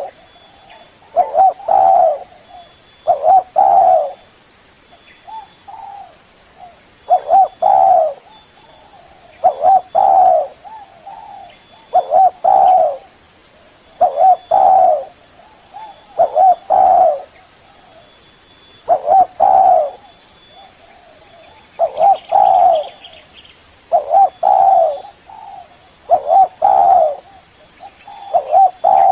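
Spotted dove (tekukur) cooing over and over, about one phrase every two seconds, each phrase a short note followed by a longer coo. It is a recorded lure call, used to call in rival doves.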